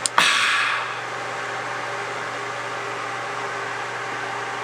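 Steady background hum and hiss of room noise. Just after the start there is one short, sharp noisy burst that fades within about half a second.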